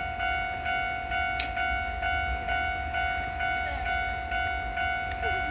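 Japanese railroad crossing alarm ringing its repeating electronic "kan-kan" tone, an even beat of about two and a half strikes a second.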